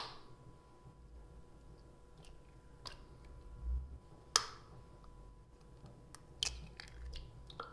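Eggshells being tapped and cracked open over a plastic blender jar: about five sharp clicks, the loudest about four seconds in, with a few soft bumps between.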